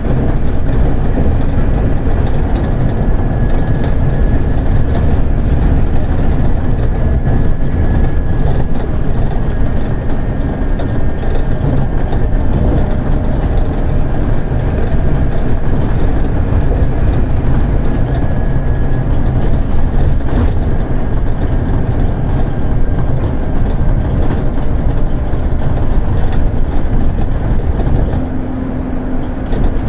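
Scania DC9 five-cylinder diesel engine of a Scania K280UD double-decker bus running hard under load, heard from inside the bus as a loud, steady low drone with a faint high whine above it. About two seconds before the end the sound drops and a steadier, lower hum takes over.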